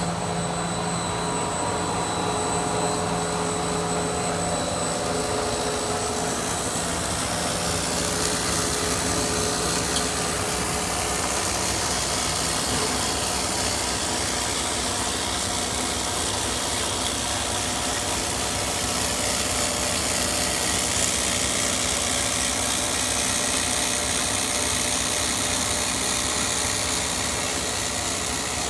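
Corn-ring puffed-snack extruder running: a steady machine drone with faint hum tones under a broad hiss. The high hiss grows louder about six seconds in.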